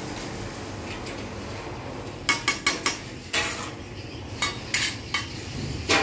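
Bricklayer's steel trowel scraping mortar and tapping on brick: a quick run of four sharp clicks about two seconds in, then a longer scrape and a few more single taps.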